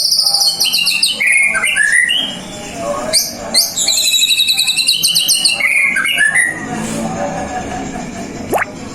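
White-rumped shama singing loudly, mixing rapid high trills with whistled phrases that glide up and down, with a quieter gap near the end broken by one quick rising note.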